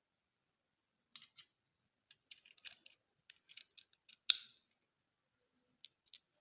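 Pistol being handled: a scatter of light mechanical clicks and rattles, then one sharp, much louder click a little past the middle, and two more light clicks near the end.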